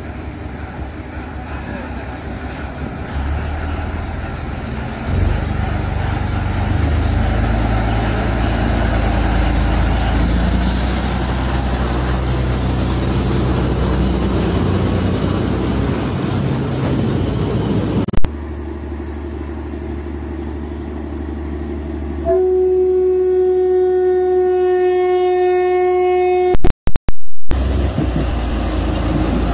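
Train running with a steady rumble, then a horn held for about four seconds near the end. A few very loud crackles follow the horn.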